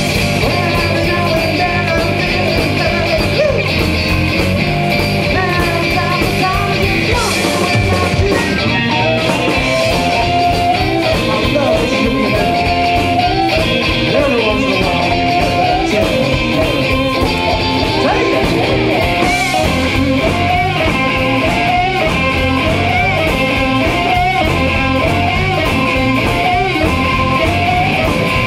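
Live blues band playing: electric guitar and harmonica over bass guitar and drums, with a line of bending melodic notes riding on top from about a third of the way in.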